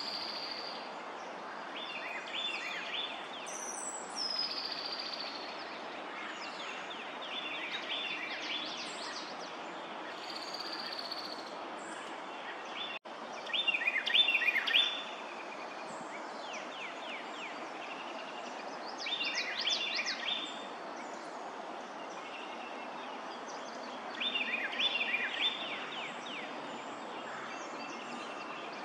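Songbird singing a short, busy phrase again and again, about every five seconds, over a steady background hiss, with thin higher notes in the first half.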